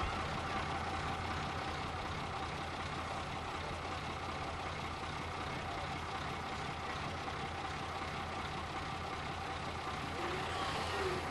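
Fire truck's engine running steadily at idle while it powers the raised aerial boom, with a constant whine over the low engine hum.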